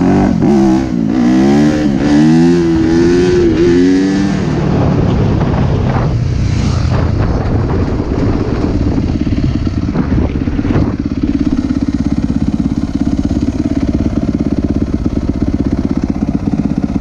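Yamaha YZ250F single-cylinder four-stroke dirt bike engine revving up and down through the gears for the first few seconds, then running steadier and lower, settling into an even pulsing idle over the last several seconds as the bike stops.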